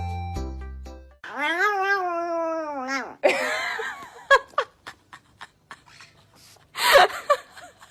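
A cat gives one long drawn-out meow that rises then falls in pitch, followed by rustling, a few sharp clicks and a short loud noise near the end. Backing music fades out in the first second.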